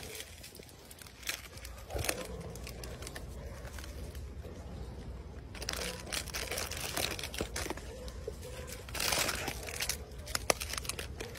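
Plastic snack wrappers crinkling and rustling in a cardboard box as macaques grab and handle the packets, coming in irregular spells that are busiest about halfway through and again near the end.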